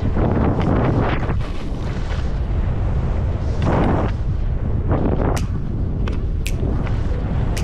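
Wind buffeting the camera microphone while skiing downhill, a loud, steady low rumble, with skis hissing over packed snow in swelling surges on the turns. A few sharp clicks come in the second half.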